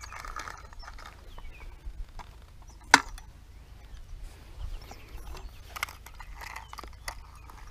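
Quiet outdoor ambience: a steady low wind rumble on the microphone, with faint scattered ticks and one sharp click about three seconds in.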